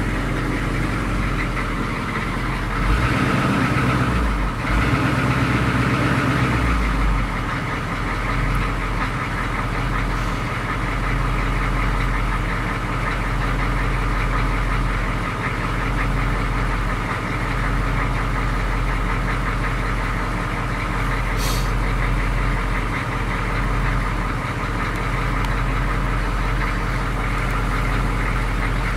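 A GM 6.2 L diesel V8 in a K5 Blazer idling steadily, heard from inside the cab, a little louder for a few seconds near the start.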